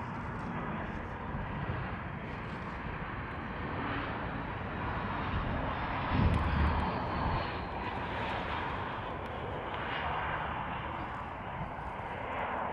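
Airbus A319 jet engines on landing: a steady jet roar with a faint high whine falling slowly in pitch. A brief low thump about six seconds in is the loudest moment.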